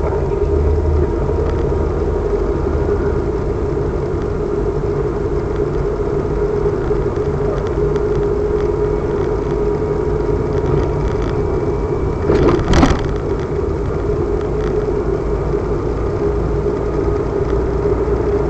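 Car driving steadily through town, heard from inside the cabin: a constant engine hum with road rumble, and one short, loud noise about twelve seconds in.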